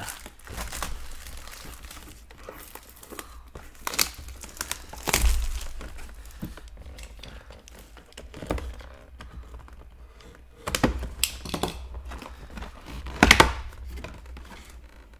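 Trading-card packaging being handled and opened: wrappers crinkling and tearing, with a run of irregular sharp knocks, the loudest about 4, 5, 11 and 13 seconds in.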